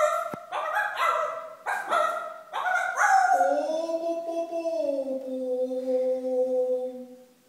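Unaccompanied voices singing an opera passage: a run of short, clipped sung syllables, then about three seconds in a single long held note that slides slightly downward and fades away near the end.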